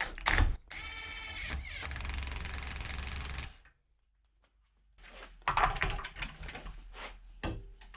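Metabo HPT WR36DB 36V cordless 1/2-inch impact wrench hammering on its lowest torque setting for about three seconds, tightening a nut on a wheel hub, then stopping sharply. A second or so later come clicks and knocks as the socket and tools are handled.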